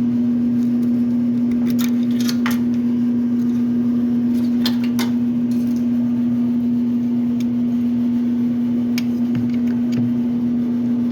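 A steady, loud hum of a small mechanical or electrical device, with a few sharp clicks of parts being handled about two, five and nine seconds in.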